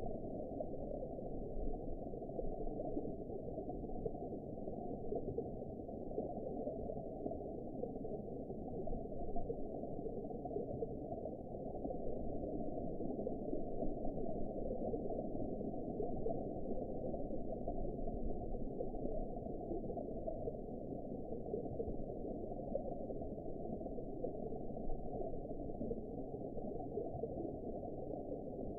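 Steady, muffled underwater ambience: an even, deep rumble of water noise with no highs and no distinct events.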